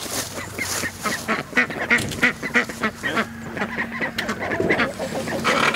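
A small flock of ducks quacking, many short calls coming close together and overlapping.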